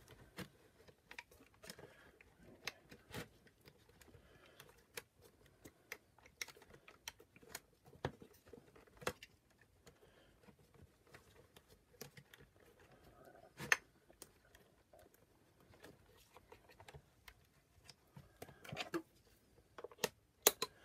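Irregular light clicks and taps of plastic parts and wires being handled and pressed into the opened housing of a Shark NV602UK power nozzle, with a sharper click about 14 seconds in and two more near the end.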